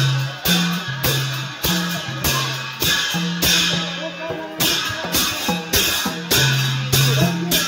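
Newari dhime drum beaten in a steady marching rhythm of about two strokes a second, each stroke joined by a clash of cymbals.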